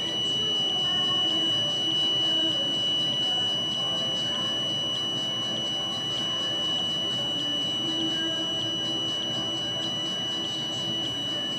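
A steady, high-pitched electronic tone, like a buzzer, with a faint tick about every 0.6 seconds.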